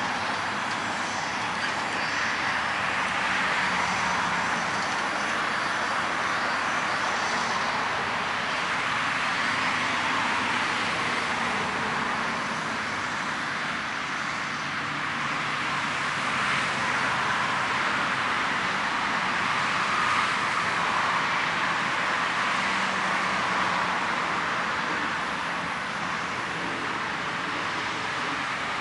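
Steady jet aircraft noise: an even rushing hiss with a faint high whine, holding level throughout.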